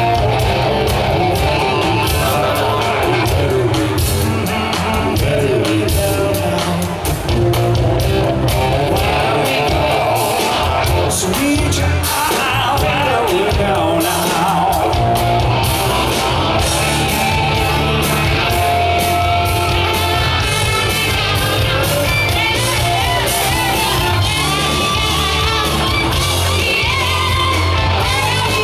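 Live party band playing a rock song, with a singer over a steady drum beat and bass.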